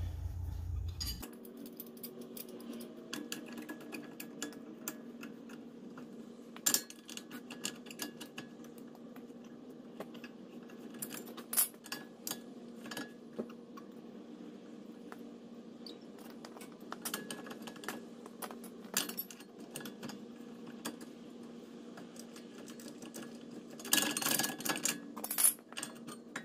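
Light metallic clicks and clinks of hand tools on the front brake caliper of a BMW 5 Series E60 as the caliper piston is pushed back to clear the caliper bracket. A quick run of clinks comes near the end.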